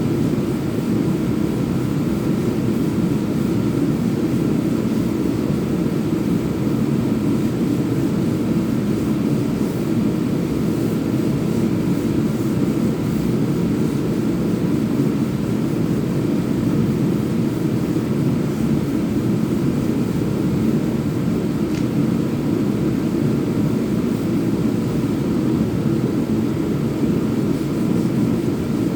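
Electric power sander running steadily without a break, a loud, even motor hum and sanding drone.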